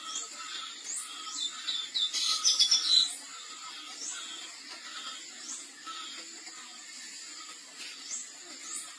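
Birds chirping: short, high rising notes repeated every half second or so over a steady ambient background. A louder burst of rapid clicking noise about two to three seconds in.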